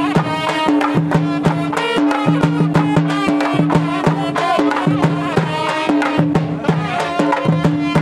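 Lively Indian folk devotional music with quick, steady drum beats and a held low note that repeats under the melody.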